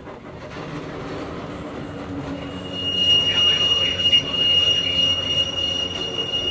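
Hakone Tozan Railway Moha 1 electric railcar running, heard from inside the car: a steady low rumble and hum from the nose-suspended motors and wheels. About two and a half seconds in, a high-pitched, steady wheel squeal starts and holds, the flange squeal of the car's wheels on a tight curve.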